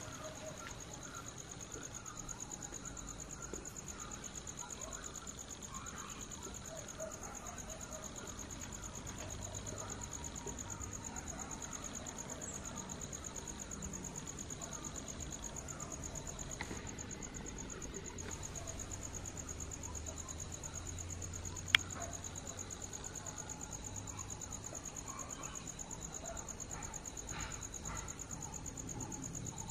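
Insects trilling: a steady, high-pitched chirring that runs without a break, with one sharp click about two-thirds of the way through.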